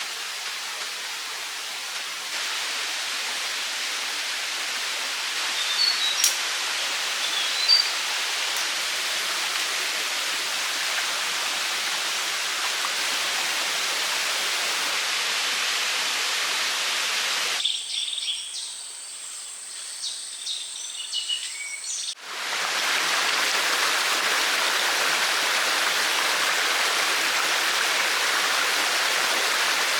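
Running water rushing steadily, with a few short bird chirps about six to eight seconds in. Past the middle the rush drops away for about four seconds, leaving a high steady whine and a few bird calls, then the water comes back louder.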